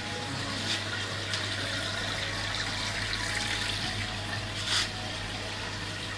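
Steady hiss of water circulating through rows of aquarium tanks, with the low hum of their filter and air pumps. A few short bursts of louder noise break in, the biggest near the end.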